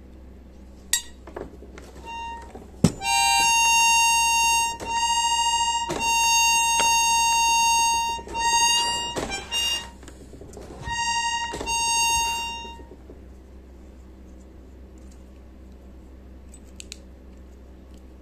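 Accordion reed on its reed block sounded by air to check its pitch while it is tuned by ear: one steady high note, sounded about six times in stretches of one to two seconds, each start marked by a sharp click.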